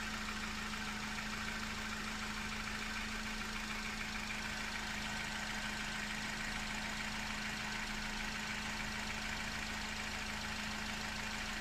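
Car engine idling steadily in the open engine bay, with a steady low hum running through it.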